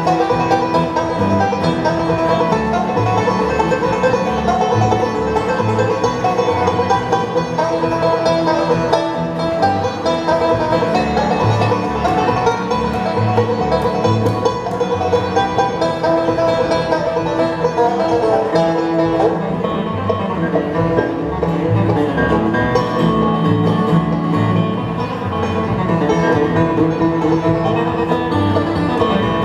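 Live bluegrass band playing an instrumental passage of a traditional bluegrass song, with plucked string instruments over a steady, regular bass line.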